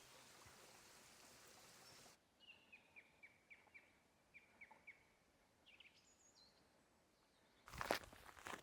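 A faint steady hiss cuts off about two seconds in. A small bird then sings a run of short descending notes, about three a second, followed by a few higher notes. Crunching footsteps start near the end.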